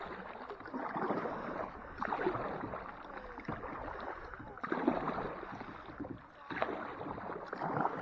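Water splashing and lapping around a small boat or kayak, in uneven swells every second or two, with a few light knocks.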